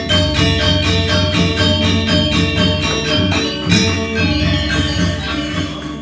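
Balinese gamelan orchestra playing live, a dense texture of ringing metallic tones struck in rapid, even strokes over hand-drum beats.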